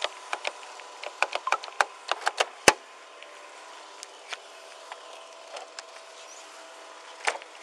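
A run of sharp clicks and knocks of handling against a body-worn camera, then a sharper single click about two and a half seconds in as a patrol car door is unlatched and swung open. After that there is only a faint steady hum, with another click near the end.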